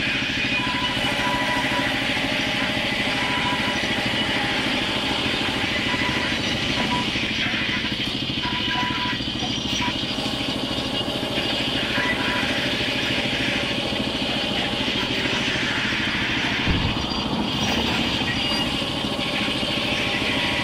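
Sawmill band saw and its machinery running steadily while timber slabs are fed through the blade, with a single thump late on.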